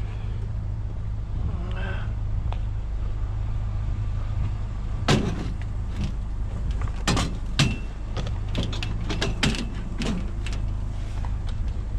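A vehicle engine idling steadily, with a series of sharp clicks and knocks starting about five seconds in.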